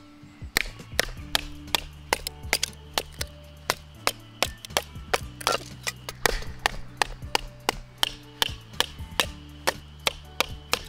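Knife being batoned through thin wooden kindling sticks: a wooden baton knocks the knife's spine in quick, sharp wooden strikes, about three a second, starting about half a second in.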